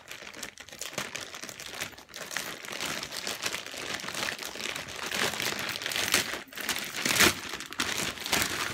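Packaging crinkling and rustling as a parcel is handled and opened, with a louder rustle about seven seconds in.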